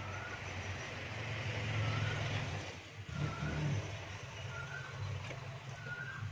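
A motor vehicle's engine running, a low steady rumble that grows louder for about two seconds and then eases off.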